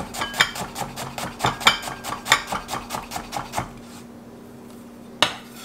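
Chef's knife mincing shallots on a wooden cutting board: a fast, even run of chops, about five a second, that stops a little over halfway through. A single sharp knock on the board comes near the end.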